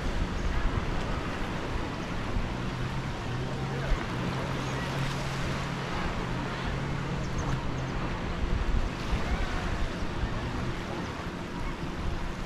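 Small waves washing onto a sandy beach in a steady wash of surf. A low, steady hum sits underneath and stops about eight seconds in.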